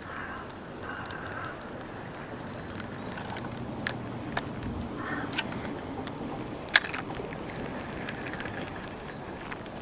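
Steady outdoor wind and water noise, with a few sharp clicks scattered through it, the loudest about seven seconds in.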